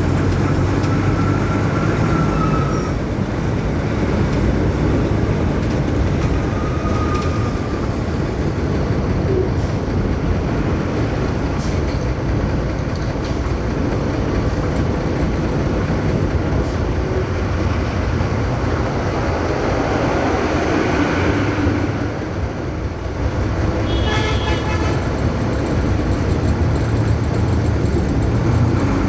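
A bus engine drones steadily over road and traffic noise while the bus is moving. About 24 seconds in there is a brief higher-pitched tone, like a horn.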